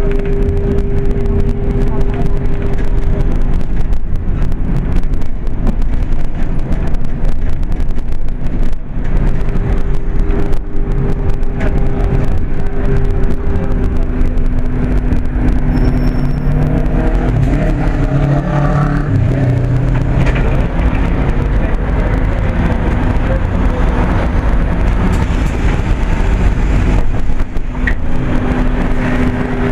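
Riding inside a moving vehicle: a steady low rumble of engine and road, with a droning hum that cuts out for several seconds about three seconds in, returns, and drops out again for a while after about twenty seconds.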